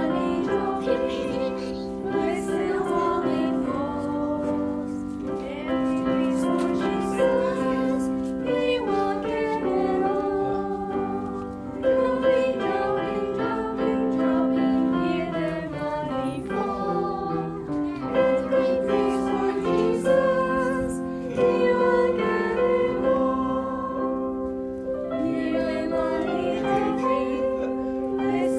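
Music: a children's Sabbath school song, sung over a steady instrumental accompaniment of held notes.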